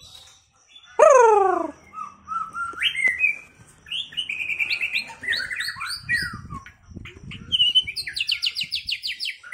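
White-rumped shama (murai batu) singing a varied song: a strong down-slurred whistle about a second in, then a run of changing whistled phrases ending in fast trills.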